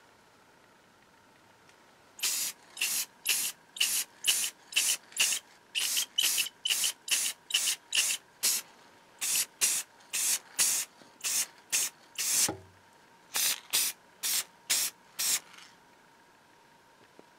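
Spray paint going onto the cast-iron parts of an antique eyelet press in about two dozen short hissing bursts, roughly two a second, with two brief pauses.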